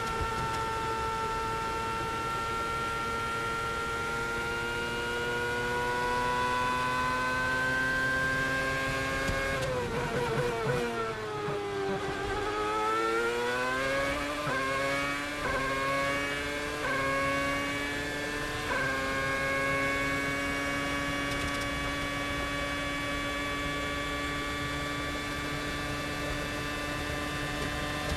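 A 2010 BMW Sauber Formula One car's 2.4-litre Ferrari V8 heard from the onboard camera at high revs. The engine note climbs slowly, then drops away around ten seconds in as the car slows for a corner. It climbs again through four quick upshifts between about 14 and 19 seconds, then holds a steady high scream flat out.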